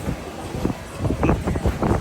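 Wind buffeting the microphone: an uneven low rumble that gusts harder in the second half.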